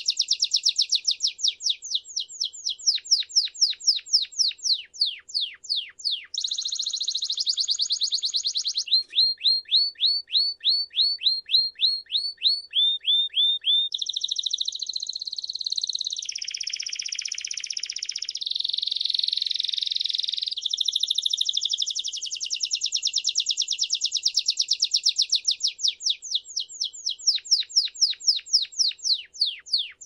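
Domestic canary (canário belga) singing a long, unbroken song of rapid trills: fast runs of downward-sweeping notes that change speed and pitch every few seconds. A slower run of separate notes comes about a third of the way in, and buzzy rolled passages come in the middle.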